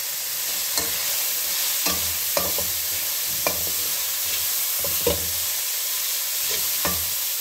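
Chicken strips, carrot and capsicum sizzling steadily in hot oil in a metal pot while a metal slotted spatula stir-fries them, scraping and clinking against the pot about six times at irregular intervals.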